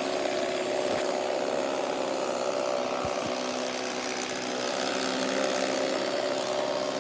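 Roomba robot vacuum running: a steady whir of its vacuum motor and brushes, holding several even tones over a rush of air.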